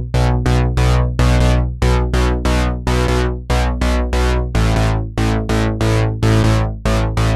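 Background music: synthesizer chords struck in a steady rhythm of about three a second over a sustained bass, with a chord change about four and a half seconds in.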